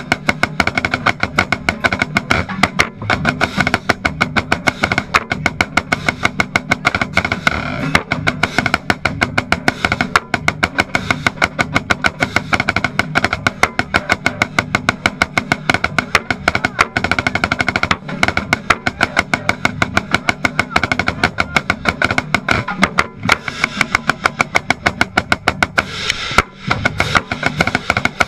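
Marching snare drum played close up: a fast, steady stream of sharp, crisp strikes and rolls, with a brief break about 26 seconds in.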